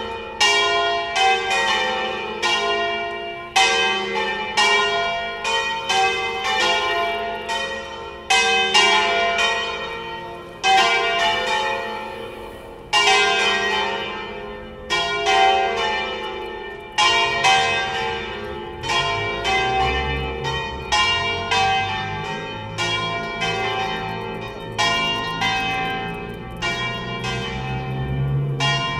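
Full peal of four church bells in F3, cast by the Colbachini foundry of Padua in 1900 and 1926, swung full circle on their wheels in the Veronese style by electric drive, the bells striking in a loose, overlapping pattern with long ringing decays. A low rumble rises under the bells in the second half.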